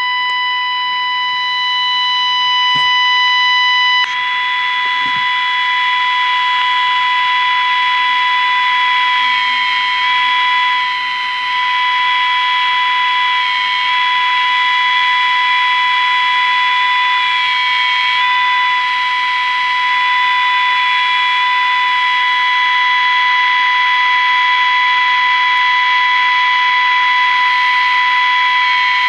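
A vintage pocket transistor radio's speaker putting out a steady, high, single-pitched tone such as an alignment test signal. About four seconds in, a second wavering whistle joins it and slowly drifts up and down in pitch, like a heterodyne as the tuning is brought in.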